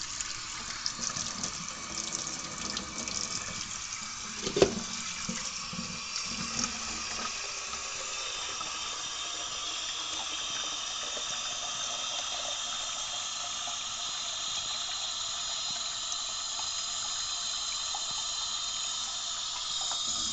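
Cold water running from a tap into a coffee maker's removable water reservoir, filling it steadily; a single sharp knock about four and a half seconds in.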